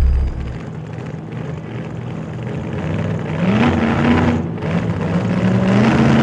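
Motorcycle engines: the low rumble drops off as the bike slows in the first moments, then an engine revs up with its pitch rising about three and a half seconds in and again near the end.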